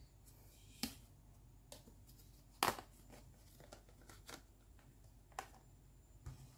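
Light plastic clicks and knocks as a hollow plastic toy basket and its ridged lid are handled and fitted together, with the sharpest click nearly three seconds in.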